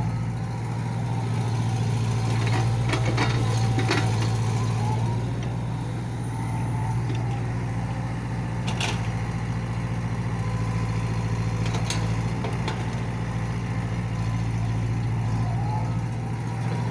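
An engine runs steadily at idle with a constant low hum. A few short clicks or knocks sound over it, a cluster about three to four seconds in and single ones later.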